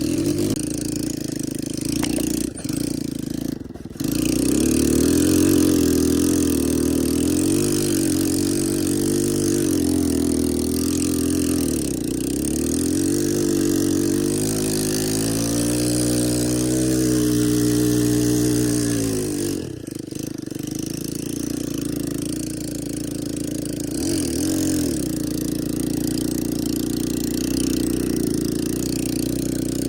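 ATV engine running under throttle, its pitch climbing to a held high rev for several seconds past the middle, then dropping off sharply and settling back to a steadier running note.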